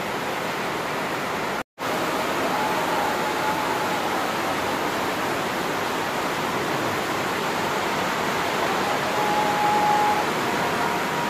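Steady rushing hiss, cut by a brief dropout about two seconds in.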